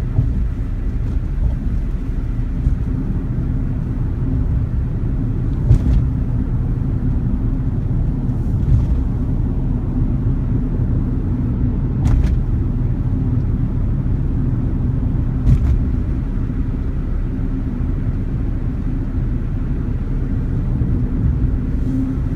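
Suzuki Wagon R Stingray (MH34S) driving, heard from inside the cabin: a steady low road-and-engine rumble with a handful of short, isolated clicks or knocks spread a few seconds apart.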